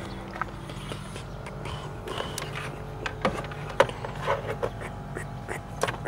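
Scattered clicks, taps and knocks of a hand handling multimeter test leads around a car's alternator in the engine bay, over a steady low hum.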